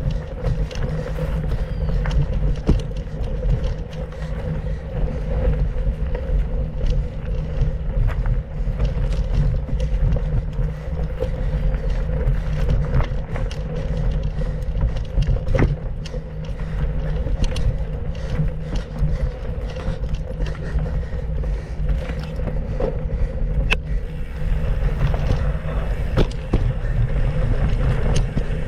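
Mountain bike ridden over a dirt trail: a steady rumble with many small rattles and knocks from bumps.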